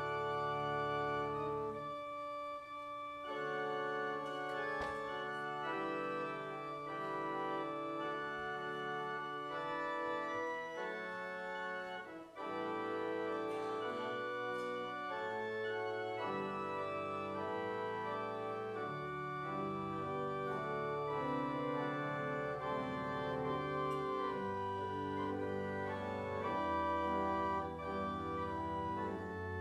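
Church organ playing slow, sustained chords, the notes changing every second or two over a low bass line.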